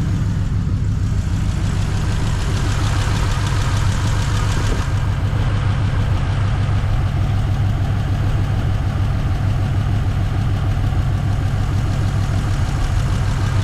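A 1952 Ford's flathead V8 idling steadily.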